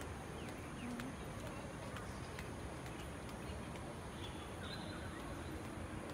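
Outdoor ambience: a steady low rumble with scattered short bird chirps and a few faint ticks.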